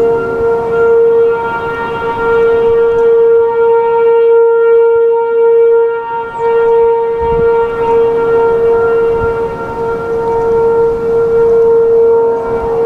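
A distant A.C.A. P-15 outdoor warning siren sounding its steady alert tone: one held pitch that swells and fades a little, signalling a tornado warning in a drill. Wind rumbles on the microphone underneath, with a gusty thump about halfway through.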